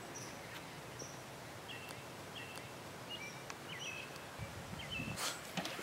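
Faint outdoor ambience with small birds chirping now and then in short high notes. A brief low rumble and a sharp knock come near the end.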